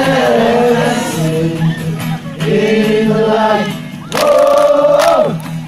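A crowd of young men singing together in chorus, in long held phrases with short breaks between them.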